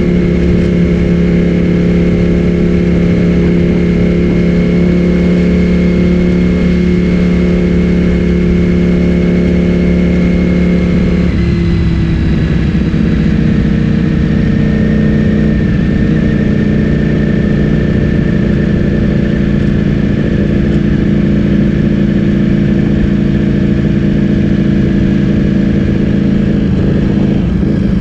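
Ducati Streetfighter V4S's 1103 cc V4 engine through an Akrapovic full-system exhaust, running at a steady engine speed while riding. Its pitch shifts a little about eleven seconds in and again near the end.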